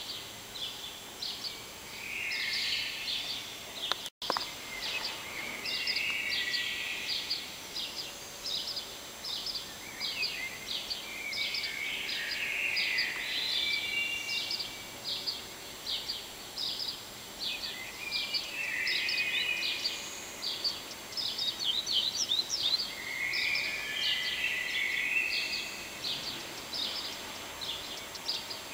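Many birds calling together: a dense run of short, high chirps with several warbling phrases in between.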